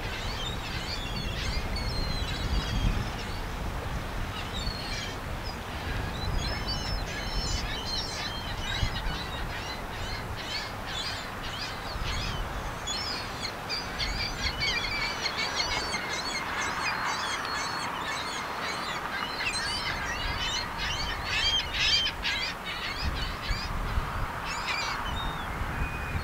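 Many small birds chirping and twittering in quick, overlapping calls, over a steady low outdoor rumble.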